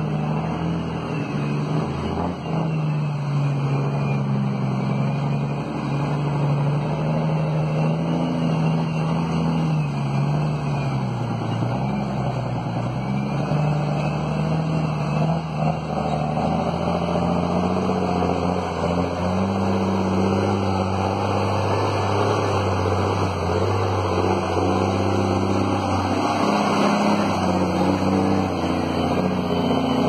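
Diesel engine of a loaded logging truck labouring up a dirt grade, running steadily under heavy load. Its pitch drops about ten seconds in, then climbs again.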